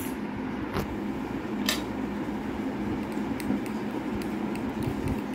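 A metal spoon stirring and scraping a mix of cream and mayonnaise in a ceramic bowl, with a few sharp clinks of the spoon against the bowl.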